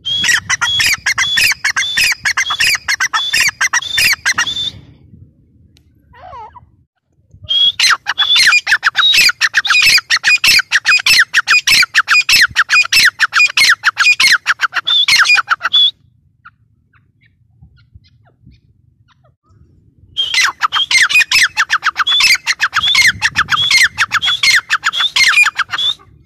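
Grey francolin calling: three long bouts of rapid, sharp, high repeated notes, the first short, the second longest, separated by pauses of a few seconds.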